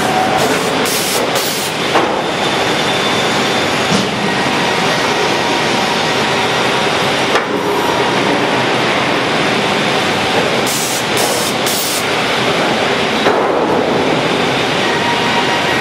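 Sawmill log-handling line running: a loud, steady clatter and rumble of chain conveyors and electric motors, with a few knocks spread through it.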